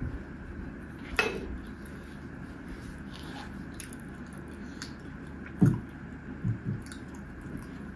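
Glass bottle being picked up and handled: one sharp clink about a second in, then a heavier low knock and two softer ones a little before the end.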